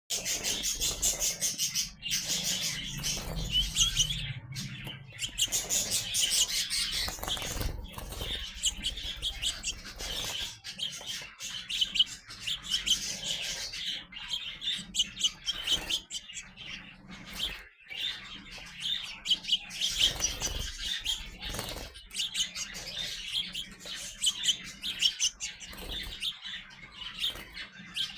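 Young sparrows chirping continuously, a dense run of quick, high chirps.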